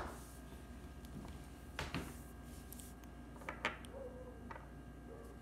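Quiet room with a few light taps and clicks of small things being handled: two close together about two seconds in, two more about three and a half seconds in, and a softer one near the end.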